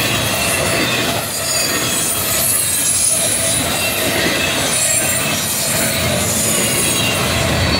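Norfolk Southern double-stack intermodal freight train's well cars rolling past: a steady rumble of steel wheels on rail, with thin, wavering high-pitched wheel squeals above it.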